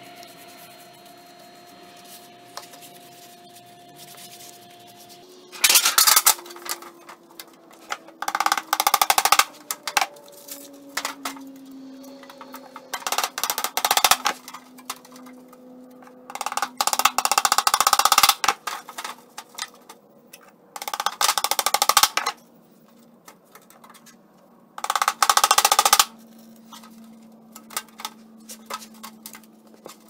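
A mallet rapidly tapping along the edge of a sheet-metal birdhouse roof, in about six bursts of a second or two each, starting about five seconds in. Soft background music with sustained tones runs underneath.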